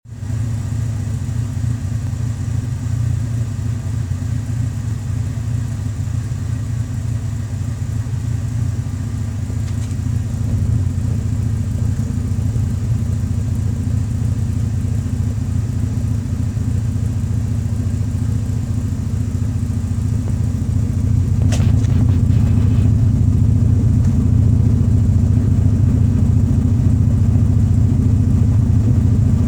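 1992 Alfa Romeo Spider Duetto's 2.0-litre twin-cam four-cylinder engine running steadily at idle through its exhaust. A short sharp click about twenty-one seconds in, after which the engine runs a little louder.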